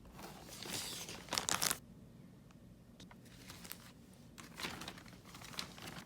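Crinkly packaging being handled and rustled, in two spells: the first starts right away and peaks with a few sharp crackles about a second and a half in, the second comes around four and a half to six seconds.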